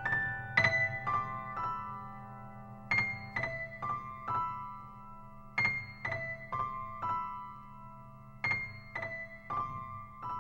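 Slow, quiet piano music: groups of four struck notes, each left to ring, come round about every two and a half seconds over a soft, low held tone.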